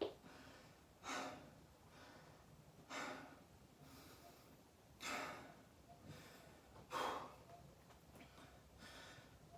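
A man breathing heavily and audibly, one deep breath about every two seconds: out of breath and recovering after a set of 40 burpees.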